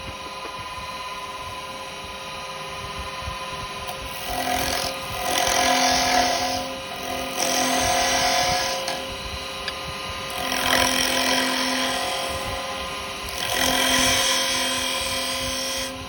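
Wood lathe running steadily while a carbide chisel cuts a spinning yew blank, in several passes a few seconds long that rise into a louder hissing scrape over the motor's hum. The yew is a hard wood.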